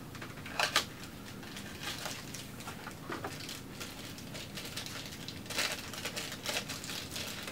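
Packaging crinkling and rustling in the hands as a telescope eyepiece is unwrapped, with irregular crackles that are sharpest about half a second in and again near the end.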